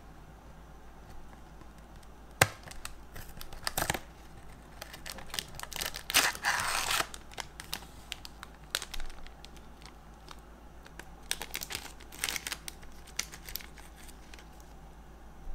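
Pocky snack packaging being opened by hand: a sharp snap as the cardboard box's tab is pulled open, then crinkling and tearing of the box and the plastic inner bag in short bursts.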